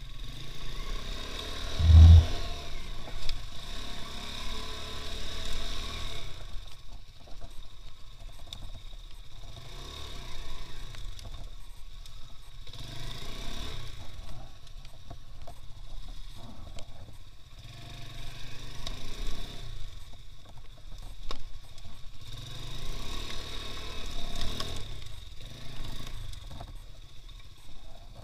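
Two-wheel-drive off-road motorcycle's engine running under way, its speed rising and falling in long swells. There is one loud low thump about two seconds in.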